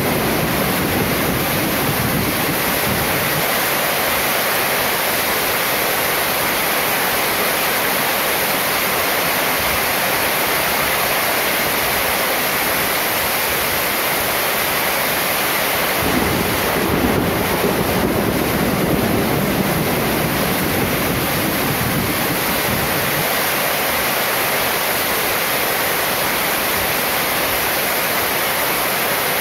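Heavy rain drumming steadily on a corrugated metal roof and spilling off its eaves. The low end swells briefly about two-thirds of the way through.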